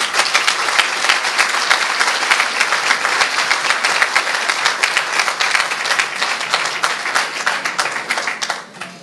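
Audience applauding: dense, sustained clapping that thins out and dies away near the end.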